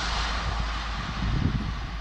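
High Speed Train (InterCity 125) running away into the distance, its diesel power car and wheel noise fading steadily, with gusts of wind buffeting the microphone.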